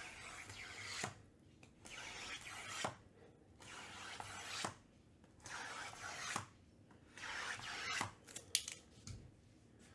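Cardboard trading-card boxes being slid against one another and restacked by hand: five rasping slides of about a second each, each ending in a light knock as a box is set down, with a few quick taps near the end.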